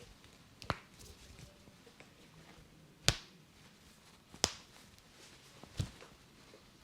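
Four sharp snaps from a barber's head and neck massage, spaced one to two and a half seconds apart, the second the loudest.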